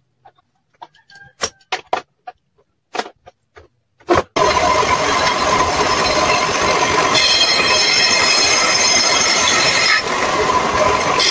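Knocks of boards being handled, then about four seconds in a power tool built into a wooden bench starts up and runs loud and steady with a whine, which grows shriller about seven seconds in.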